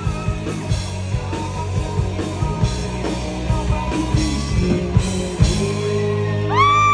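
Live rock band playing loudly, with a steady bass and drum wash and cymbal hits about twice a second. Near the end a long held high note rises in and sustains.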